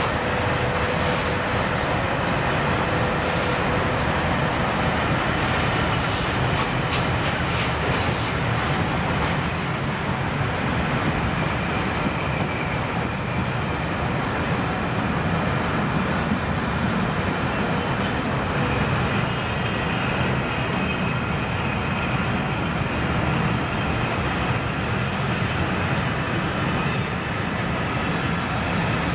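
Peppercorn A1 Pacific steam locomotive 60163 Tornado hauling a train of coaches away over the pointwork: a steady rumble of locomotive exhaust and rolling coach wheels.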